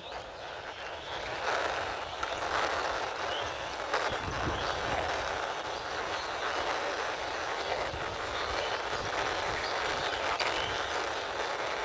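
Toy ambulance's wheels rolling as it is pushed along by hand: a steady gritty rolling noise.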